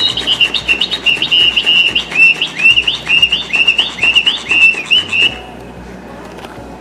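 Flapping-wings sparrow cat toy running: its speaker plays a fast run of short, upward-hooking sparrow chirps over the even, rapid clicking of its wing mechanism. Both cut off abruptly about five seconds in as the toy stops.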